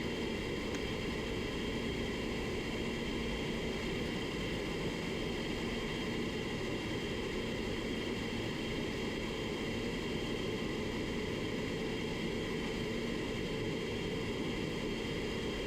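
Steady rushing hiss of air moving through a paint spray booth, with a faint low steady hum under it.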